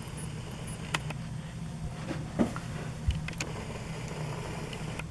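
A few small, sharp clicks and taps from a tiny QFN chip and its plastic spring-pin test socket being handled as the chip is set in place, over a steady low hum.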